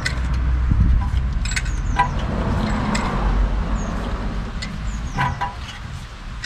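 Brake caliper piston compression tool being wound in against the caliper piston, with scattered sharp metallic clicks and scrapes over a low rumble.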